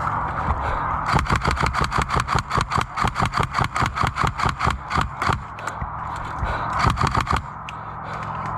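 Airsoft gun firing a long rapid string of shots, about seven a second for some four seconds, then a second short burst, over a steady low hum.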